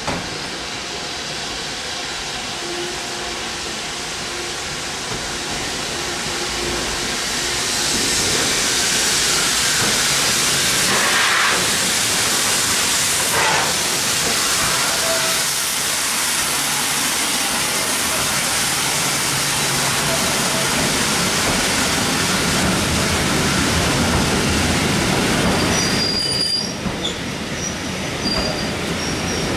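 South Eastern & Chatham Railway H class steam tank engine No. 263 running into the platform with its train, the sound growing louder from about eight seconds in as it nears and passes. Its vintage coaches then rumble past on the rails, with high-pitched wheel squeal near the end as the train slows.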